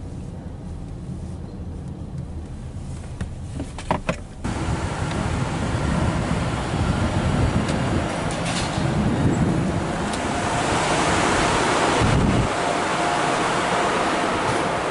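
Low hum inside a car's cabin as it rolls to a stop, with a couple of clicks about four seconds in. It then changes suddenly to a louder, steady wash of traffic noise outside the airport terminal.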